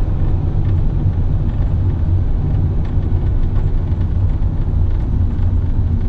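Steady low rumble of a van's engine and tyres on a sealed road, heard from inside the cab while driving.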